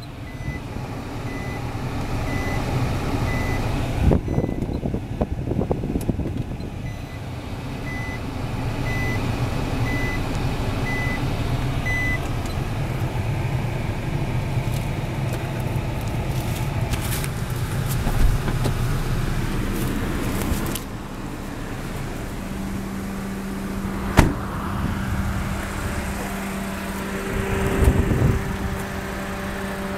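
Nissan Bluebird Sylphy sitting parked and running, a steady low rumble and hiss, heard inside the cabin and later from outside by the front. A short electronic beep repeats through the first dozen seconds, and a few clicks and knocks come and go.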